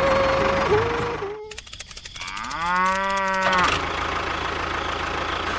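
A cow mooing once, a long call of about a second and a half that rises in pitch at its start, about two seconds in. Before it, a steady running machine sound with a held tone cuts off suddenly.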